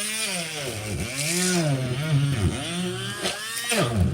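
Handheld electric blender running in a bowl of ice cream, milk and crushed Oreos. Its motor pitch dips and recovers again and again as it churns the thick mixture.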